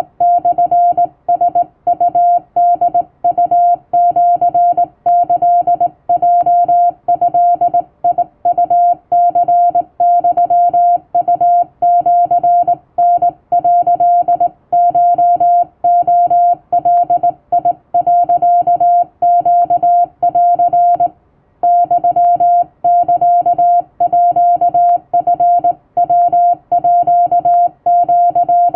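Hand-keyed Japanese Wabun Morse code: a steady tone of about 700 Hz switched on and off in a continuous run of short and long elements, with a slightly longer gap about twenty-one seconds in.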